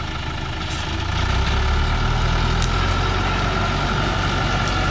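Diesel engine of a Dongfeng logging truck, heavily loaded with acacia logs, running as the truck crawls forward up a muddy slope. It grows louder about a second in, and a steady whine joins about two seconds in.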